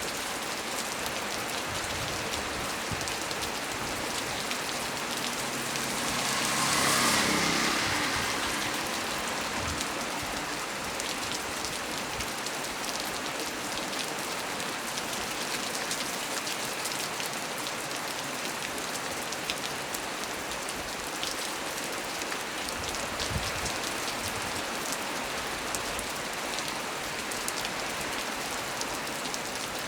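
Heavy rain falling steadily on leaves and surfaces, with individual drops ticking through the hiss. About seven seconds in, a louder rushing swell rises and fades over a couple of seconds.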